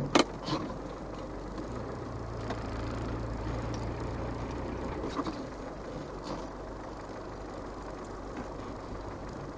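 Land Rover Defender 110's 300Tdi four-cylinder turbodiesel pulling at low revs under load, climbing a steep hill in low-range first gear with the diff lock engaged, heard from inside the cab. It is a steady drone, a little stronger for a few seconds near the start, with two sharp knocks right at the beginning and a few light ticks later.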